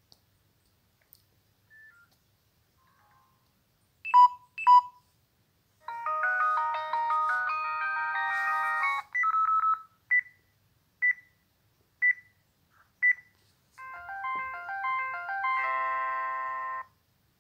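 Samsung phone's electronic alert tones as its battery runs critically low. Two sharp beeps about four seconds in are followed by a short melodic chime, then single beeps about once a second, and near the end a short electronic tune as the phone powers off.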